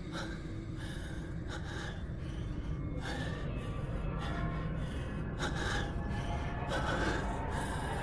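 A man breathing hard in heavy, ragged gasps, about one breath a second, over a low rumbling background: the sound of someone out of breath.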